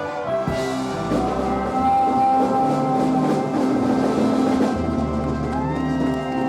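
Live band playing, with drum kit hits and sustained chords, and bending, sliding notes near the end.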